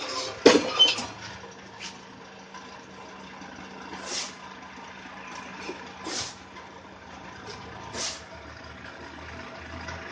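Concrete block press machine at work: a steady low hum from its motor, two loud metal clanks about half a second in, then short rushing, scraping noises about every two seconds.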